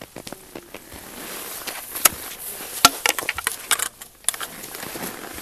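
Irregular crunches and sharp clicks of a climber's gear and boots moving on snow and ice. The clicks cluster between about two and four and a half seconds in.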